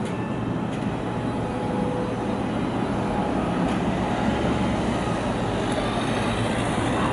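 Articulated city tram rolling slowly past on street track: a steady rumble of wheels and running gear mixed with street traffic noise, and a car driving by near the end.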